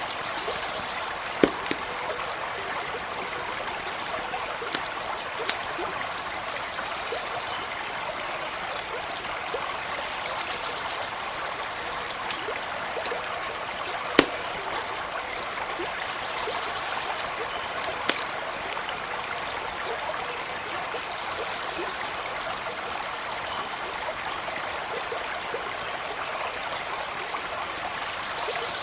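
Steady running water of a small stream, with the sharp scattered pops and crackles of a campfire, a handful over the stretch, the loudest about a second and a half in and again near the middle.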